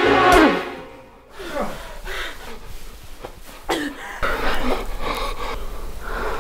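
A person gasping and sobbing in ragged breaths, after a loud falling cry at the very start.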